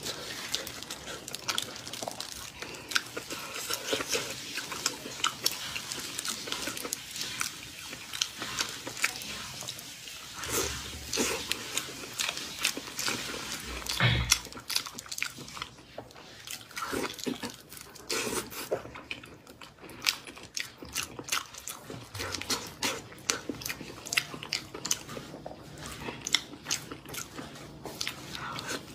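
Close-miked eating: biting into and chewing chili-coated braised meat, with many quick irregular clicks and smacks from the mouth. There is a dull bump about halfway through.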